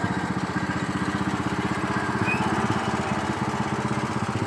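Riding lawn mower's small engine running steadily, with an even, rapid pulsing beat.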